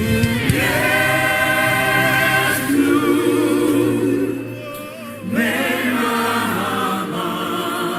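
Choir singing a slow worship song in sustained, wordless held notes over a low steady instrumental pad, with a brief dip about five seconds in.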